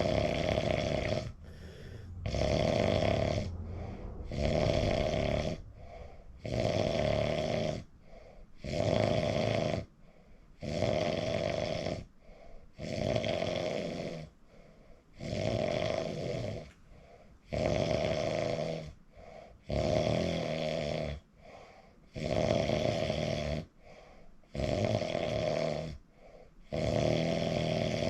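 A sleeping man snoring heavily, a loud rasping snore on every breath about every two seconds, with softer breathing in the gaps.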